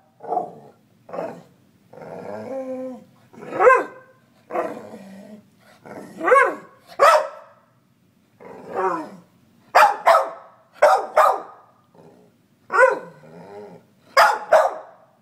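Staffordshire bull terrier barking at its owner, demanding attention, in a string of separate calls about one a second. Some are short sharp barks and some are drawn-out calls that rise and fall in pitch.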